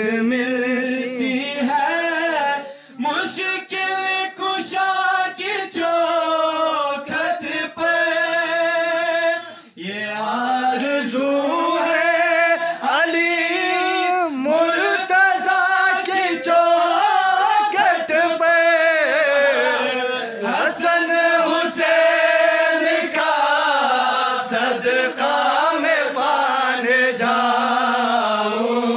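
A man singing an unaccompanied devotional manqabat in Urdu into a microphone, drawing out long, ornamented notes with a wavering pitch. The singing breaks briefly about three seconds in and again near ten seconds.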